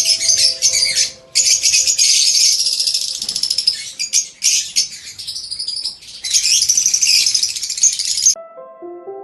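Many budgerigars and lovebirds chattering at once in dense, rapid, high-pitched bursts over soft background music. The bird sound cuts off suddenly near the end, leaving only the music.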